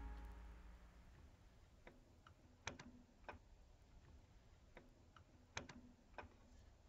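Faint small clicks and ticks as fingers turn the bolt under a carburetor's float bowl, metal catching on metal, in two similar clusters about three seconds apart.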